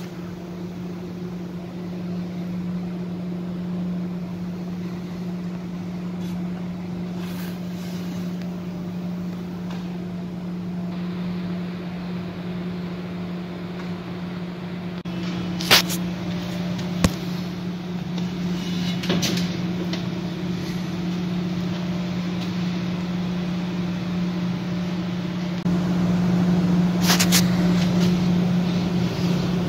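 Steady low machine hum with one even tone, growing a little louder near the end, with a few sharp clicks or knocks in the second half.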